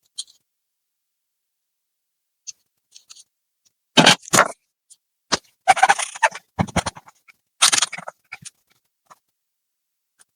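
Laptop parts being handled and worked apart: near silence, then from about four seconds in a run of sharp clicks, knocks and short scrapes of hard plastic and metal, trailing off into a few faint ticks.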